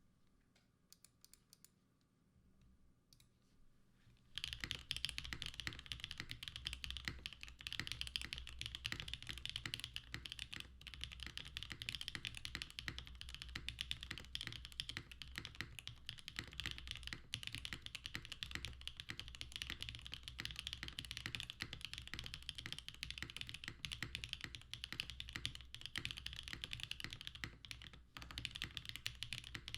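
Bauer Lite mechanical keyboard with pre-lubed Gateron Smoothie linear switches and GMK keycaps being typed on fast and continuously, over a faint hiss. A few faint clicks come first; steady typing starts about four seconds in, with a brief pause near the end.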